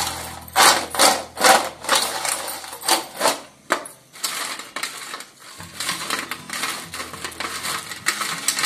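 Fried idli pieces sliding and rattling around a metal plate as it is shaken to coat them in spice powder, in swishes about twice a second, then quieter scraping and rustling as a hand tosses them in the plate.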